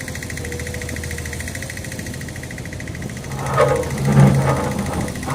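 Backhoe engine running steadily. About three seconds in, louder, uneven sounds with a wavering pitch start on top of it.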